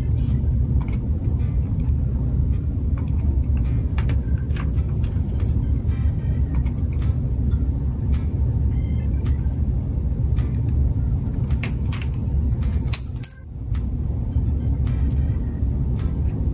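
Steady low rumble with scattered light clicks and taps of wooden craft sticks being handled and glued in place; the rumble drops away briefly about 13 seconds in.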